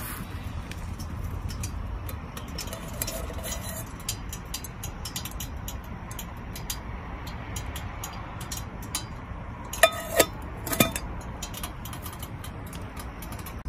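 Aluminium pot lid set back on a cooking pot, giving three sharp metallic clinks with a short ring about ten seconds in. Underneath there is a steady low rumble with faint scattered ticks.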